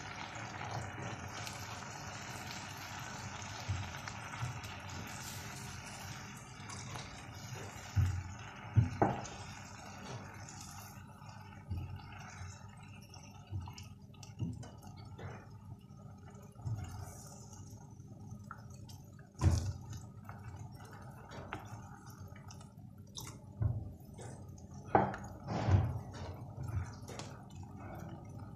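Sauce simmering in a frying pan as a cornflour slurry is poured in and stirred to thicken it, with a steady hiss for the first several seconds that fades. Scattered soft knocks and scrapes of a silicone spatula against the pan follow.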